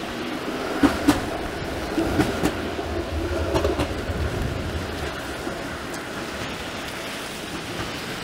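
Toronto streetcar running along its rails with a low rumble and a few sharp clunks in the first four seconds, over the steady hiss of rain and tyres on the wet road.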